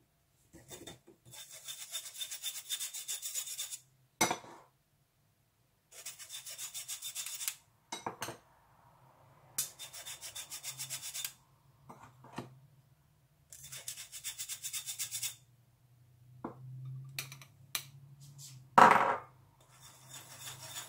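Flour being sifted through a mesh sieve: bursts of quick, rhythmic scratching, each about two seconds long, with pauses and a few short knocks between them. The loudest sound is a single knock about two seconds before the end.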